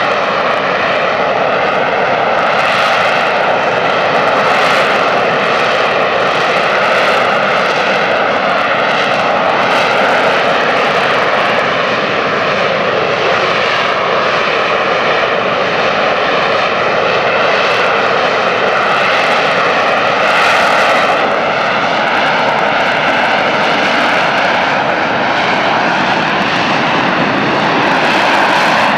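AV-8B Harrier II jet, its Pegasus turbofan running loud and steady throughout, with a whining tone that wavers slightly in pitch.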